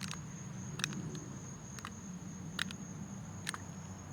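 Crickets or similar insects calling outdoors: a steady high trill with a sharper chirp about once a second, over a steady low rumble.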